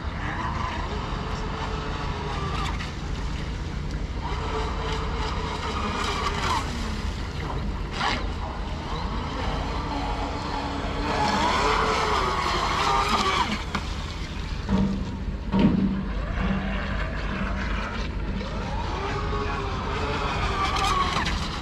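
Joysway Bullet radio-controlled racing boat's electric motor whining, its pitch rising and falling as it runs across choppy water, over a steady low rumble of wind on the microphone. Two short sharp knocks come partway through.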